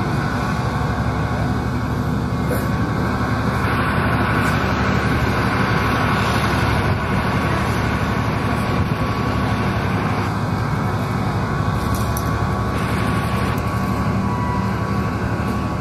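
Ship's engine running steadily: a loud, even mechanical drone with a low hum.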